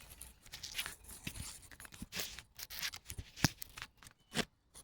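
Irregular rustling and scratching with scattered sharp clicks, handling noise as a freshly caught bass is held and turned; the sharpest clicks come about three and a half and four and a half seconds in.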